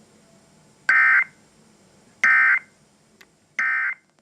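Emergency Alert System end-of-message signal: three short, identical bursts of digital data tones, each about a third of a second long and about 1.4 seconds apart. This is the SAME 'NNNN' code that closes the severe thunderstorm warning broadcast.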